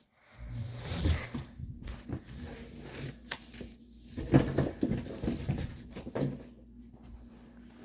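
Rustling and knocking of packaging and plastic parts as the animatronic's head is pulled out of its box. Under it runs a steady low hum that starts about a third of a second in.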